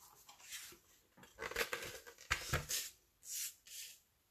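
A sheet of cardstock being handled and slid over a cutting mat onto a scoring board: papery swishes with a few light knocks in the middle, then two short swishes near the end.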